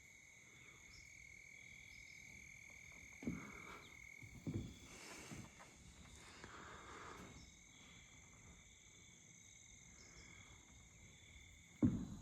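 Faint steady chorus of insects calling outdoors: a constant high drone in several pitches, with a few soft knocks. Near the end comes a sharp footfall.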